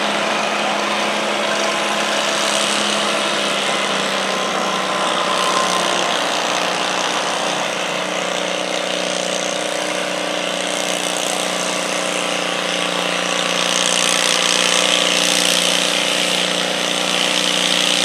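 Garden tractor engine running steadily under load as it pulls a weight-transfer sled through dirt; an even engine drone whose pitch shifts slightly about eight seconds in.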